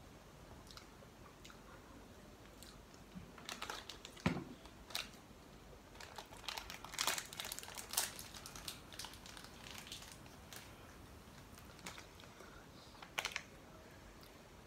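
Crinkling and tearing of a plastic Lotte Choco Pie wrapper being opened, in a dense run of crackles a little past the middle, with scattered eating sounds around it.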